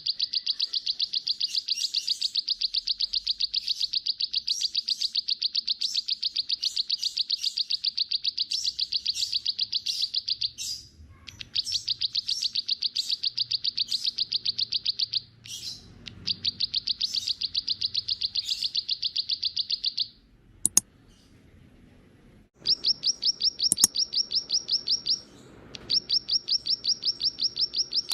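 A small songbird trilling: long runs of rapid repeated chip notes, about ten a second, broken by short pauses. After a gap of about two seconds with a couple of single sharp notes, a slightly higher-pitched trill starts up.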